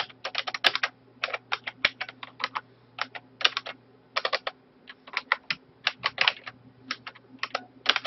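Computer keyboard typing: quick keystrokes in short irregular clusters, with a faint steady low hum underneath.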